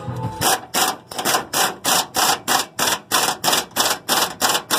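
Hand socket ratchet clicking in quick back-and-forth strokes, about four a second, running a nut up the fuel tank strap bolt.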